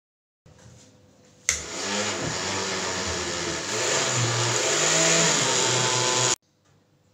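Countertop blender switched on about a second and a half in, running steadily for about five seconds as it blends mint and moringa leaves in water, then cut off suddenly.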